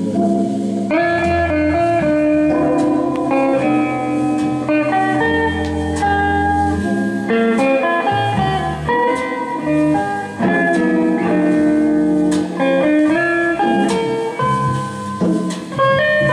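Guitar music played from a vinyl record on a 1973 Philips GF 808 record player, heard through its two speaker boxes, with plucked notes over a steady bass line.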